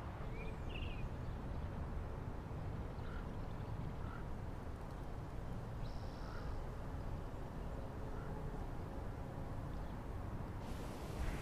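Steady ambient background noise with a low rumble and a few faint, short chirps.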